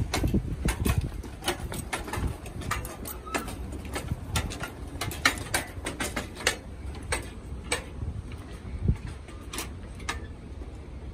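Footsteps of people climbing steel-mesh stairs: shoes tapping and clanking on the metal treads in an uneven run of sharp knocks, over a steady low rumble.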